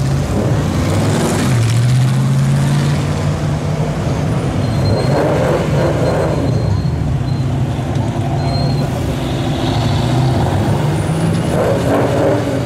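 Several cars driving slowly past in a line, their engines running loud and steady with a deep note that steps in pitch as they pull away. A 1940 Ford coupe passes first and a Ford Mustang GT follows.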